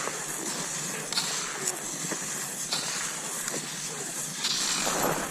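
Cross-country skis gliding over snow in a steady stride, a hiss that swells with each push about every second.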